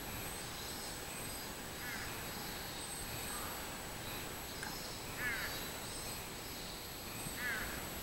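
Robust cicadas (minmin-zemi) singing in the trees, a steady high-pitched drone with pulsing high bands. A bird gives short calls three times over it, the last two the loudest.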